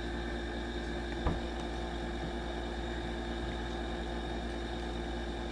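Steady low background hum with a faint hiss, holding several fixed tones, and a single short click about a second in.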